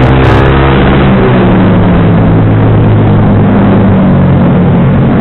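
Sport motorcycle with a racing exhaust running under steady throttle at riding speed, its engine note holding nearly level, over a constant rush of wind noise.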